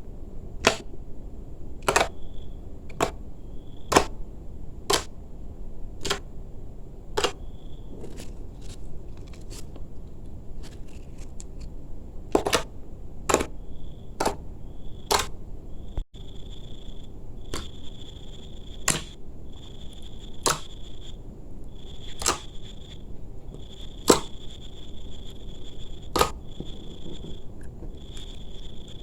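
Slime being squeezed and played with by hand, giving sharp pops and clicks about once a second, fewer for a while in the middle.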